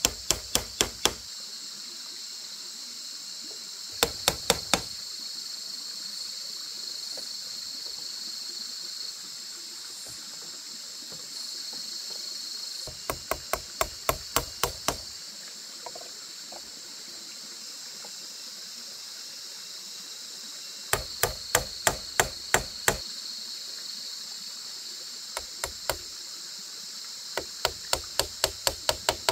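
Quick runs of hand-tool blows, about four to five strikes a second, in bursts of one to two seconds with pauses of several seconds between. A steady high insect drone sits underneath.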